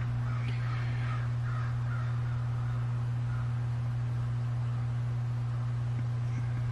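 Steady low electrical hum: a deep, even tone with a fainter one an octave above it. Faint light ticks sound over it during the first couple of seconds.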